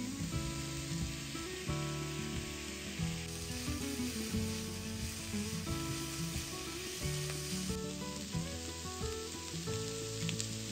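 Food sizzling in oil in a hot frying pan, a steady hiss, over background music.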